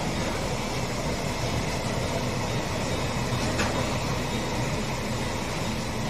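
Taki 1000 gasoline tank wagons of a freight train rolling past: a steady rumble of steel wheels on the rails, with one sharp click about three and a half seconds in.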